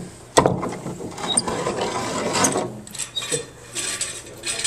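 A metal C-clamp being handled and fitted to the saw table: a sharp knock about half a second in, then irregular clicking and rattling of the clamp's metal parts.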